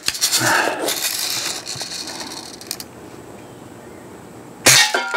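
Daisy Red Ryder lever-action BB gun: metallic rattling and clinking as the gun is handled for about two and a half seconds, then after a pause of about two seconds a single sharp shot near the end, followed by a brief metallic ring.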